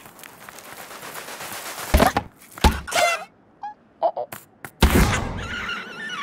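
Cartoon slapstick sound effects: a rising whoosh, then loud impacts about two and three seconds in, each with a short wavering squawk from the cartoon bird, a few small clicks, and another heavy crash about five seconds in followed by a rushing whoosh.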